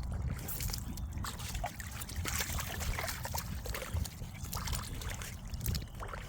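A German shepherd sloshing and splashing about in muddy water, with irregular watery splashes and trickling throughout, over a low rumble of wind on the microphone.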